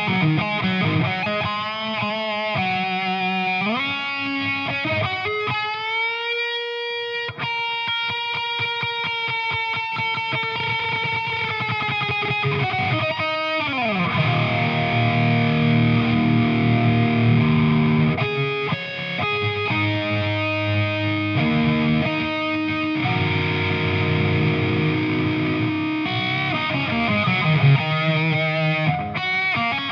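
2015 Chapman ML3 electric guitar on its newly installed Seymour Duncan Quarter Pound bridge pickup, played through an amp set for crunch distortion. It opens with chord riffs, then rises into a single note held for several seconds. About 13 seconds in it slides down into more chord riffing.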